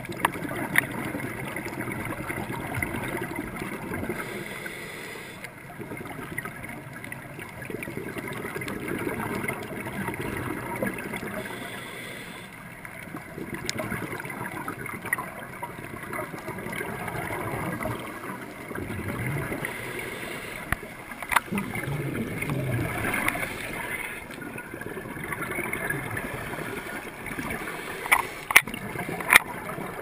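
Underwater noise heard through an HD Hero camera's waterproof housing during a fast-current drift dive: a steady, muffled rush of water with scuba exhaust bubbles gurgling now and then. A few sharp knocks stand out, one about a second in and several near the end.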